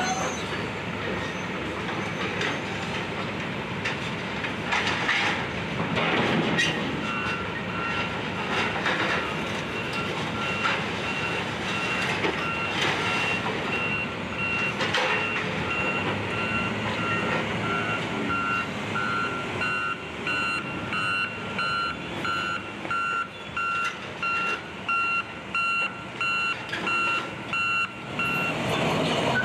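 Heavy demolition machinery running, with crashes of falling debris in the first half. From about seven seconds in, a vehicle's backup alarm beeps about once a second until near the end.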